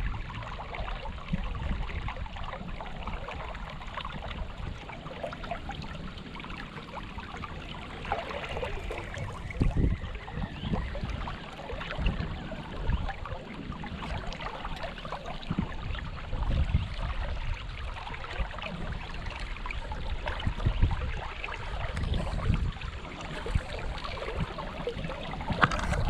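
Creek water running over rocks, a steady rushing hiss, with irregular low rumbles and knocks on the microphone.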